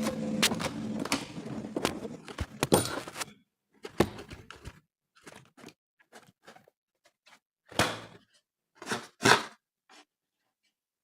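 Handling noises: about three seconds of continuous rustling with knocks, then a scatter of separate short taps and soft squishy clicks with quiet between them, stopping abruptly near the end.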